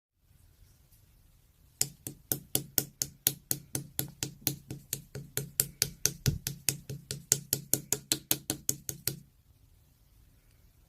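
A fast, even run of sharp knocks, about four a second, starting about two seconds in and stopping abruptly some seven seconds later.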